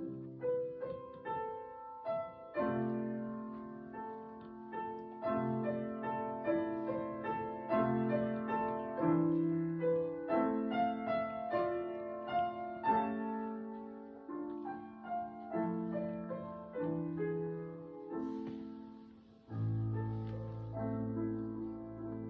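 Piano playing a slow classical piece as a steady run of struck chords, about one or two a second; a deep bass note comes in near the end.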